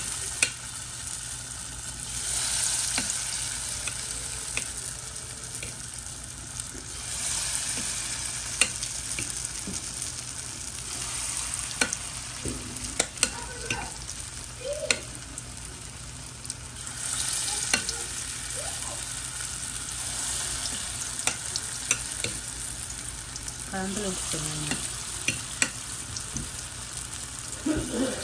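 Bajiye fritters deep-frying in hot oil in a steel pot: a steady sizzle that swells several times as fresh batter goes in. Scattered sharp clicks come from the metal spoon against the pot.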